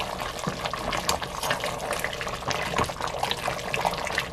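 Beef short ribs being stirred with a ladle in a simmering, thick red chili braising sauce in a stainless steel pot: wet sloshing and bubbling with many scattered small pops and clicks.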